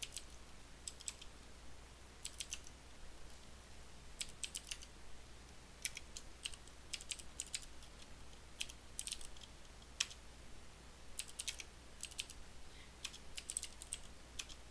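Computer keyboard being typed on in short, irregular bursts of keystrokes with brief pauses between them, over a faint steady low hum.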